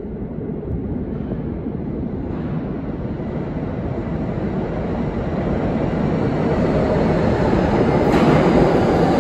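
A 5-car R160B subway train with Siemens propulsion approaching and pulling into an underground station. Its rumble grows steadily louder and turns sharply brighter and harsher about eight seconds in, as the train reaches the platform.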